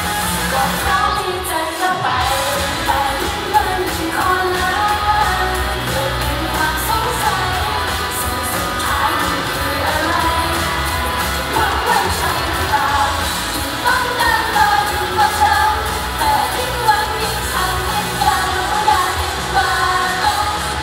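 Upbeat idol pop song, loud, with female voices singing over a full backing track.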